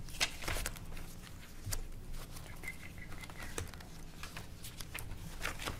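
Scattered soft rustles and small clicks of papers being handled and pages turned at a meeting table, over a steady low hum in the room.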